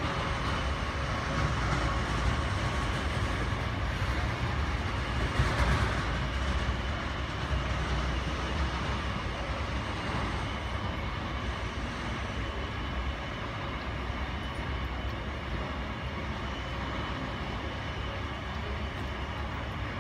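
Steady airport apron noise: a low rumble with a faint, steady high jet-turbine whine from an idling airliner, and a brief swell about five seconds in.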